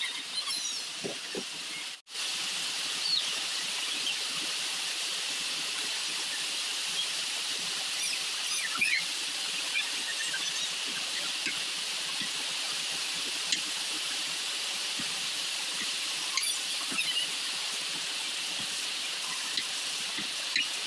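Outdoor ambience: a steady high-pitched hiss with scattered short bird chirps, and a few light knocks of a knife on a wooden chopping board. The sound drops out briefly about two seconds in.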